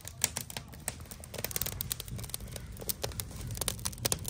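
Freshly lit wood fire crackling, with many irregular sharp snaps and pops.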